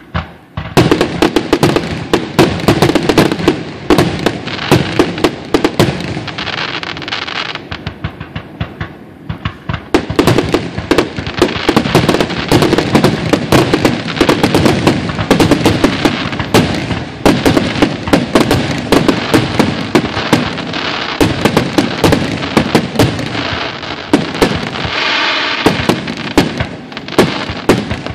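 Aerial fireworks shells bursting in a dense, nearly continuous barrage of bangs and crackles, starting about a second in after a brief lull.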